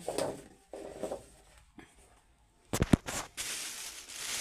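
A couple of sharp knocks a little past the middle, then a thin plastic bag rustling and crinkling as a hand rummages in it for potatoes.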